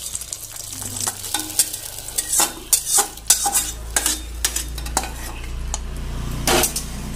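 Hot tempering oil with mustard seeds, garlic, dried red chillies and curry leaves tipped from a small iron pan into a pot of sambar, sizzling. A metal spatula scrapes and knocks repeatedly against the iron pan to clear it out.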